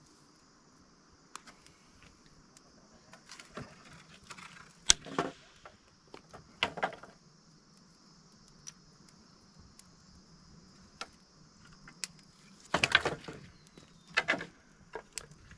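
Irregular clinks and knocks of objects being handled, loudest about five seconds in and again around thirteen seconds, over a steady high-pitched insect drone.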